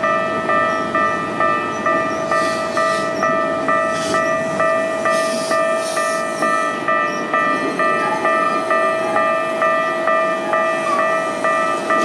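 Electronic Japanese level-crossing warning bell ringing in a steady, rapid ding-ding-ding, about two to three strokes a second. Under it is the running noise of a Keikyu 1500-series train passing over the crossing, with a few brief high clatters from the wheels and rails.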